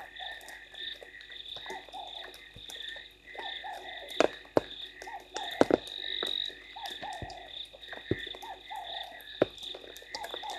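Frogs calling at night, a repeated short curving call every second or so over a steady high-pitched chorus. Irregular sharp taps of raindrops run through it, with the loudest cluster about four to six seconds in.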